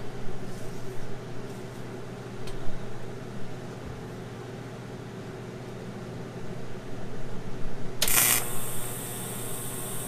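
Handling noise of gloves and tools over a steady shop hum, with a light clink a couple of seconds in. Near the end a TIG welding arc strikes with a short loud crackle, then burns with a steady high hiss as the second side of a steel tab is tack-welded.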